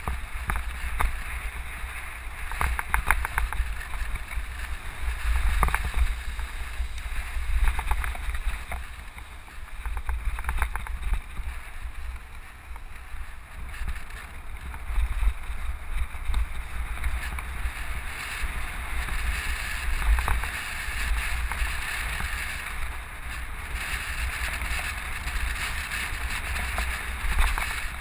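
Low rumble of a vehicle driving along a rough dirt road, with scattered knocks and rattles from the bumps.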